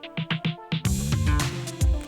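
Electronic background music with a steady drum beat over sustained notes; it turns fuller and brighter a little under a second in.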